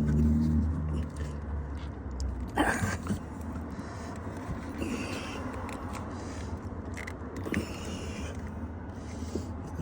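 Hands fumbling under a pickup's dashboard, scraping and knocking on plastic while working the clipped-in turn-signal flasher relay loose, with a sharp knock about two and a half seconds in and a few small clicks later. A low steady hum runs underneath.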